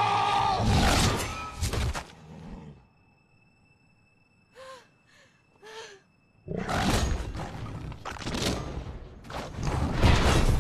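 Film sound of armoured polar bears fighting: a loud bear roar at the start, then a near-quiet stretch of about three seconds broken by three short falling cries. From about six and a half seconds in come heavy crashes and roars as the fight resumes.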